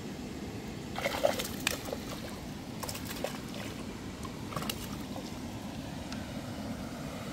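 Water splashing and sloshing as a fish thrashes at the surface against the bank, with a few short splashes about a second in, around three seconds and near five seconds.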